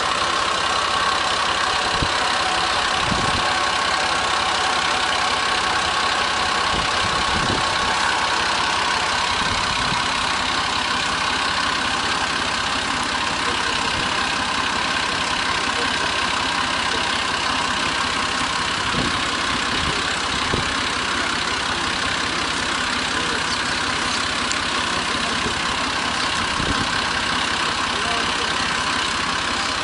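An engine running steadily at an even speed, with a dense, unchanging mechanical noise.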